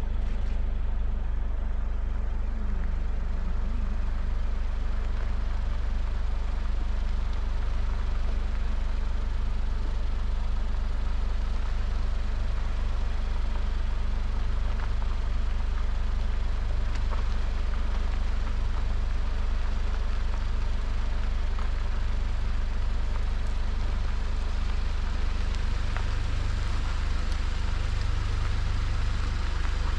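A vehicle's engine running steadily at low revs, a constant low hum.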